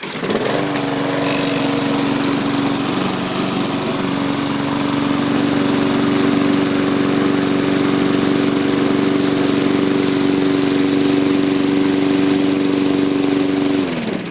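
Craftsman Eager One lawn mower's Tecumseh engine catching on the first pull on a cold start after two years in storage, then running steadily. Near the end its pitch falls as it winds down.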